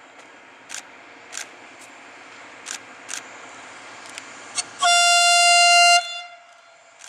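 A train horn sounds one steady blast lasting just over a second, over the running noise of the train. A few sharp clicks come before the blast.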